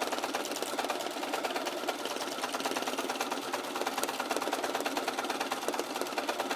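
Bernina sewing machine stitching steadily at speed, a rapid, even run of needle strokes.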